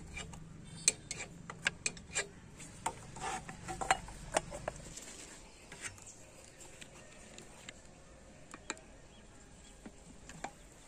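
Scattered sharp clicks and small metal knocks from hand tools and parts being handled on a moped, closely spaced over the first half and sparser later, with a low hum that fades about halfway through.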